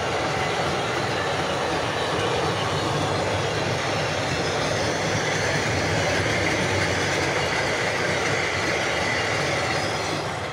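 Loaded double-deck car-transporter wagons of a freight train rolling past at close range: a steady, loud rumble of wheels on rail, with a high squeal coming in about halfway through. Near the end the noise starts to fade as the last wagons move away.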